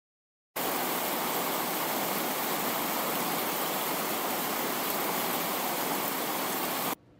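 Steady hiss of static-like noise, even across all pitches with no tone or rhythm. It starts abruptly about half a second in and cuts off suddenly near the end.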